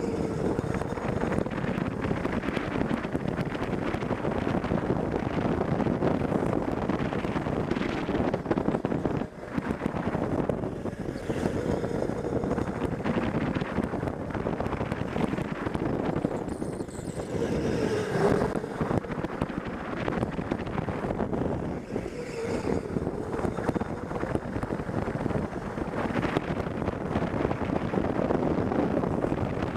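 Onboard audio of an electric go-kart lapping an indoor track: wind buffeting the microphone over the kart's running noise, with a faint motor whine that dips and comes back up as the kart slows and speeds up through the corners.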